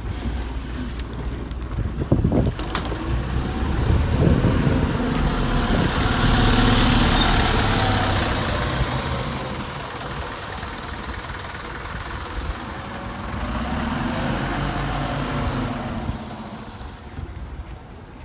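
Optare Solo bus engine and drivetrain running, heard from inside the bus. The sound swells twice, around four seconds and thirteen seconds in, eases off in between, and fades near the end. The uploader says this bus sounds ill, after it broke down the day before.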